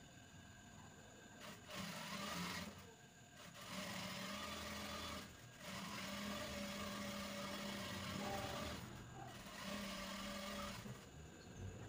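Industrial sewing machine stitching a trouser leg seam. It runs in stretches of one to three seconds with a steady hum, stopping briefly between them as the fabric is repositioned.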